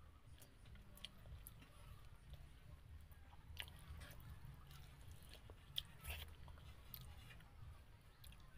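Faint close-up chewing and small mouth clicks from a person eating chicken, with scattered soft ticks.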